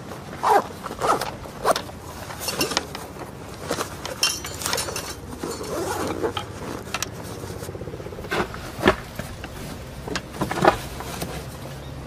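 Fabric gear pouches being handled and fitted onto a metal grid panel in a vehicle's window: a run of short scrapes, rustles and clicks, with a longer zip-like rip about four seconds in.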